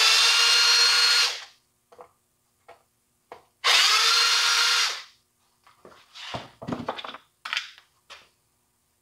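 Cordless drill-driver running in two steady bursts of one to two seconds each, unscrewing fasteners on a Jonsered GT21L string trimmer's housing. Near the end come short knocks and clatter as parts and the drill are handled and set down on the bench.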